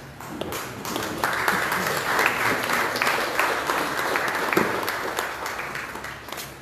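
Audience applauding. The clapping builds up about a second in and dies away near the end.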